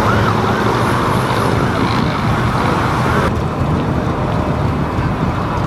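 Steady low engine rumble of classic cars driving slowly past, with a siren wailing up and down during the first second or two. The sound changes abruptly about three seconds in.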